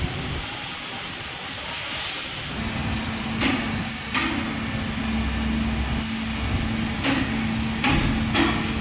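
Workshop noise: a steady hiss, then a steady machine hum comes on about two and a half seconds in, with five sharp knocks scattered through it.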